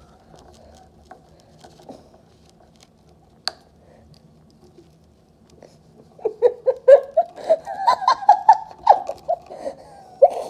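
A person giggling in quick bursts, starting about six seconds in, after a quiet stretch broken by one sharp click.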